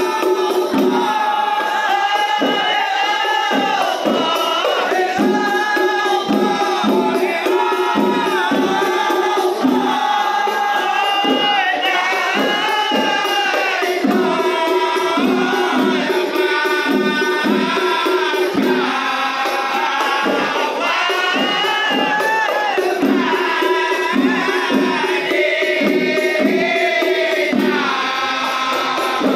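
A rebana ensemble of hand-struck Malay frame drums beating a steady rhythm while a group of men sings.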